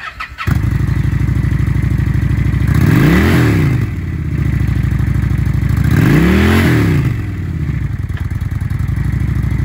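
Honda Shadow Phantom's fuel-injected 750cc V-twin starting up about half a second in and idling, then revved twice, each blip rising and falling back to idle.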